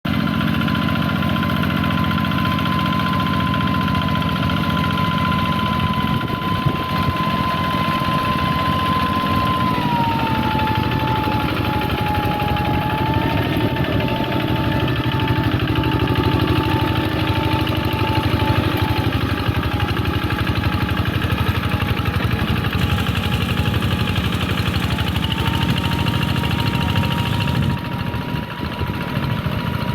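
Two-wheel hand tractor's engine running steadily while ploughing a wet rice paddy. A whine in it drops in pitch about a third of the way through and rises again near the end.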